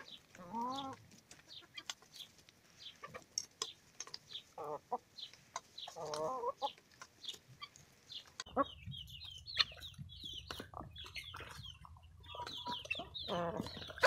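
Laying hens clucking in short calls while pecking chopped garlic from a pan, their beaks making many quick sharp taps.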